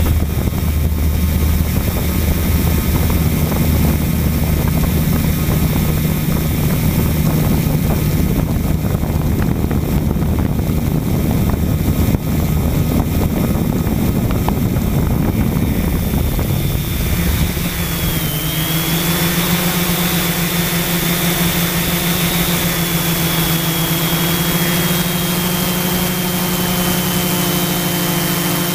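Quadcopter drone's propeller motors humming steadily. About two-thirds of the way through, the deep hum gives way to a higher hum with a thin high whine as the motors change speed.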